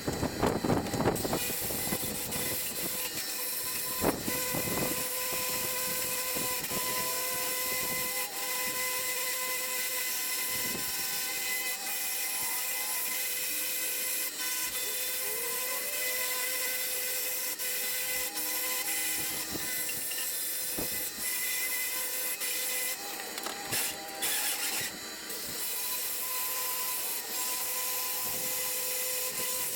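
Angle grinder running steadily against steel plate, grinding off mill scale: a constant motor whine over a hiss of abrasive on metal. It lets up briefly a few times in the last third.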